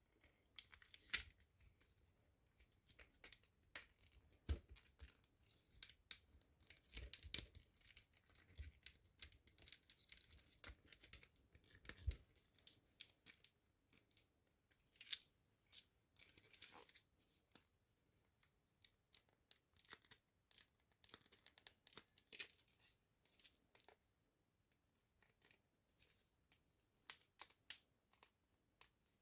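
Faint handling noises: scattered sharp clicks, snips and short scrapes of small plastic toy pieces and packaging being handled, the loudest click about a second in.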